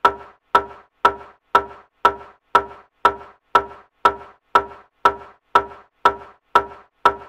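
Steady beat of sharp knocks, about two a second, each with a short ringing tone, starting suddenly out of silence.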